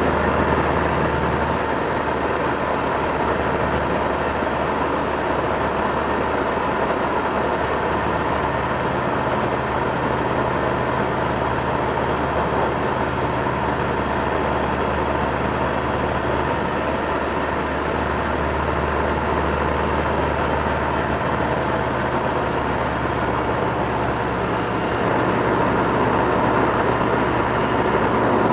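Subaru Impreza WRX's turbocharged flat-four engine running steadily. Its low note shifts to a new pitch a few times, over a steady rushing noise.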